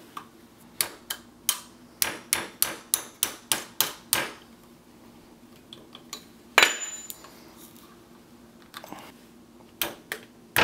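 A hammer tapping a 1/8-inch pin punch to drive a roll pin out of the sling mount on an AR-15's steel A2 front sight base: about a dozen sharp metal taps, roughly three a second. A single louder, ringing metallic clack comes about six and a half seconds in, and a few more taps follow near the end.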